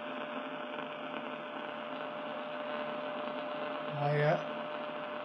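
Grundig 2147 valve radio's loudspeaker putting out a steady hiss with a faint steady tone under it: the strong test signal almost fully suppressed by the AM IF trap coil set to its minimum. A short voice-like sound cuts in briefly about four seconds in.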